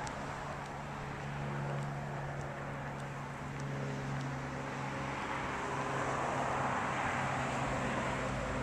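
Road traffic noise from a nearby busy road, with a steady low hum underneath; a passing vehicle swells louder about six to eight seconds in.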